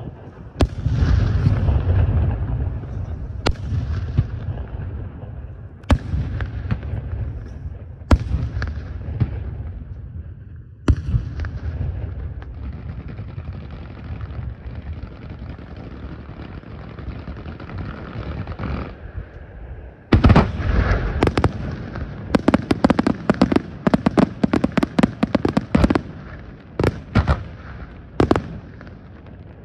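Fireworks display: single booming shell bursts a few seconds apart, then a stretch of steady hissing from ground fountains. From about twenty seconds in comes a rapid barrage of bangs and crackles from aerial shells.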